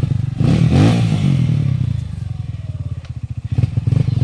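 Dirt bike engine revving in bursts as it climbs a steep step in a dirt trail, with a hard rise in revs about half a second in. It eases off through the middle and picks up again near the end.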